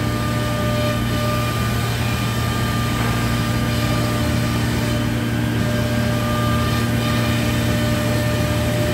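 Steady machine drone from a Biesse CNC router running with its dust extraction: a strong low hum under a few steady higher tones.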